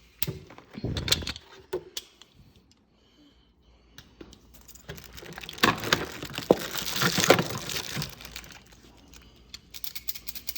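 Door-lock hardware being handled: scattered metal clicks and clinks, then a denser stretch of rustling and crinkling with sharp clicks through the middle.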